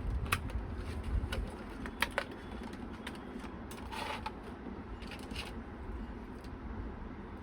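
Light clicks and taps of a computer component being handled, an M.2 SSD readied for fitting, with a brief scratchy rustle about four seconds in, over a low steady hum.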